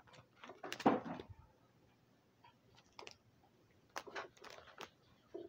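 Card binder's plastic sleeve pages being handled and turned: scattered rustling and clicking, loudest about a second in, with another cluster near the end.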